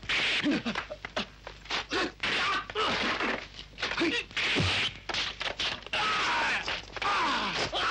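Kung fu film fight sound effects: a rapid run of punch and kick whacks, mixed with the fighters' grunts and yells.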